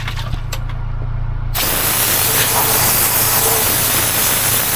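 A spray hiss, most likely a spray can laying on rust-protection coating over welded metal, that starts abruptly about a second and a half in and keeps going steadily.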